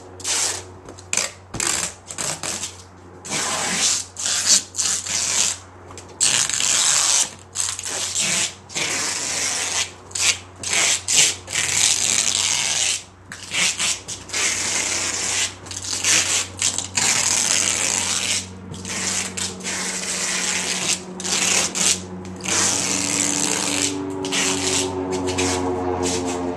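Packing tape being pulled off the roll and pressed onto a large cardboard box, in many separate strips lasting from a fraction of a second to about a second and a half. Near the end a vehicle engine comes up underneath.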